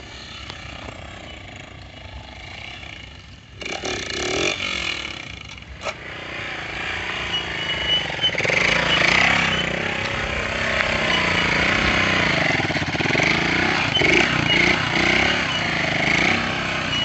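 Small single-cylinder Honda motorcycle engine revving up and down in pitch while ridden in a wheelie, growing louder from about six seconds in as it comes close and staying loud.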